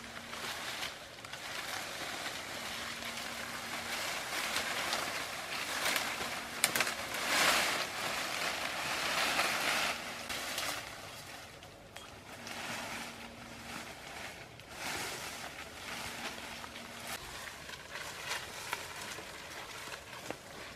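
Leafy branches rustling and swishing as they are gathered up and handled, loudest in the middle, with a sharp crack about seven seconds in.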